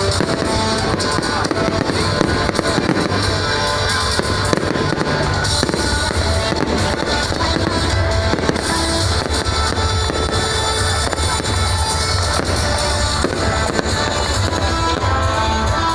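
Fireworks crackling and popping in a dense, continuous barrage, mixed with loud music that has steady held notes and a heavy bass.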